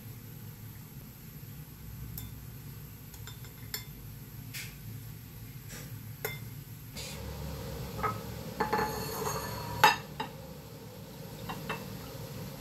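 Chopsticks tapping and clinking against porcelain bowls and a plate while shrimp are moved into beaten egg. Scattered light clicks, then a busier run of clinks with the loudest, a sharp clink, about ten seconds in.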